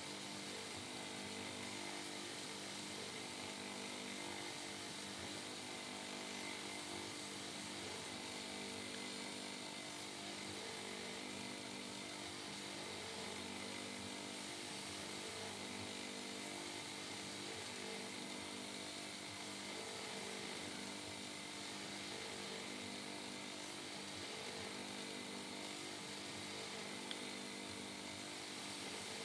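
Electric motor running a water-fed grinding wheel steadily while a piece of buffalo horn is pressed against it, a constant motor hum under a grinding hiss.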